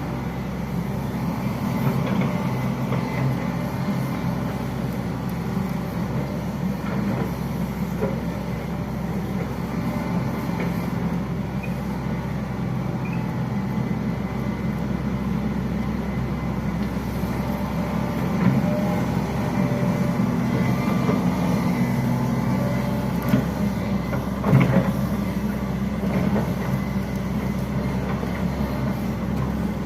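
Hitachi Zaxis 110 long-reach excavator's diesel engine running steadily, with a few short knocks, the loudest about 24 seconds in.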